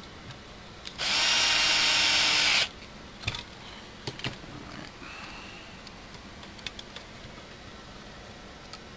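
Small cordless power driver runs once for about a second and a half at a steady speed with an even whine. It is followed by a few light clicks and taps.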